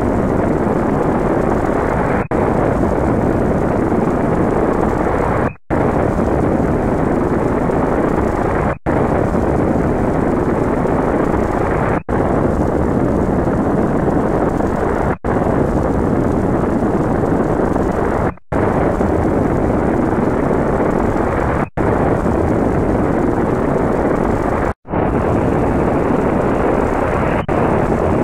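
Loud, heavily distorted edit audio: a dense, harsh noise with no clear tone, cut into repeating segments about three seconds long by short dropouts.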